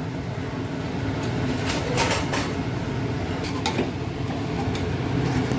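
A steel ladle scraping and knocking against the side of an aluminium pressure cooker as pork, onion, tomato and spice powders are stirred together; a handful of short, separate scrapes over a steady low hum.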